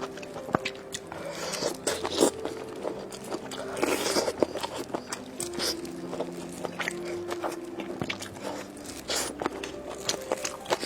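A person eating crisp fried skewer food: repeated crunchy bites and chewing, sharpest and densest about two and four seconds in.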